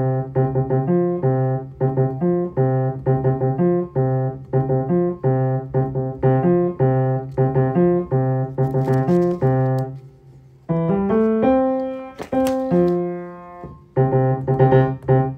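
Piano playing a short repeating pattern of low bass notes in quick, even notes. This breaks off about ten seconds in, and a few rolled chords and held notes follow near the end.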